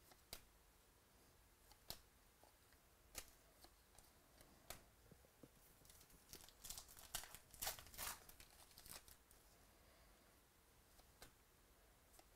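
Faint tearing and crinkling of a trading-card pack wrapper being opened, with a few scattered light clicks first and a denser run of crinkling about halfway through.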